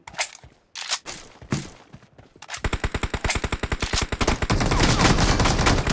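Video-game gunfire: a few separate sharp shots or clicks in the first second and a half, then, about two and a half seconds in, a rapid automatic burst of about a dozen shots a second that keeps going.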